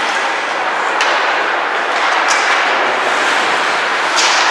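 Ice hockey play in an indoor rink: a steady wash of rink noise broken by three sharp cracks of puck and sticks, about a second in, a little past two seconds, and near the end.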